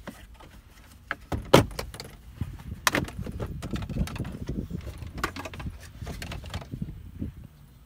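Plastic dashboard trim panel of a 2017 Honda Ridgeline being pried off: its retaining clips pop loose with sharp snaps, the loudest about one and a half and three seconds in, then a run of small clicks and rustling as the panel is worked free.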